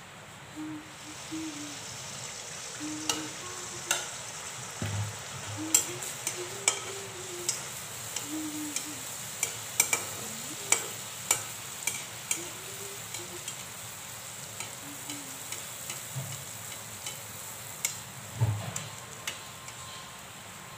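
Malpua batter deep-frying in hot oil in an iron karahi: a steady sizzle with many sharp spattering pops. Two dull knocks, about five seconds in and near the end.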